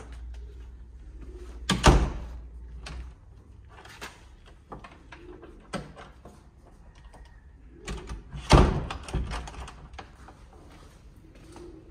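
A wooden door being handled: two loud bangs of it shutting, about two seconds in and again near the end, with smaller clicks and knocks of the latch in between.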